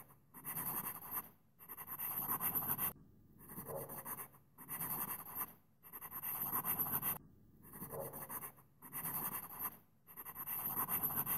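Marker scribbling on a drawing surface: a run of about eight scratchy strokes, each about a second long, with short pauses between them.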